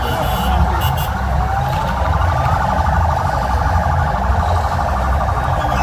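Vehicle sirens sounding: a fast warbling siren tone, with a wailing siren rising in pitch about a second and a half in, over a steady low rumble.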